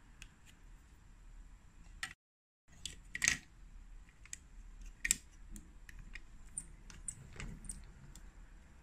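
Light, scattered clicks and taps of hard plastic on plastic and wood as a toy figure is fitted into a BRIO plastic metro train car and the car is handled on wooden toy track. There is a brief moment of total silence about two seconds in.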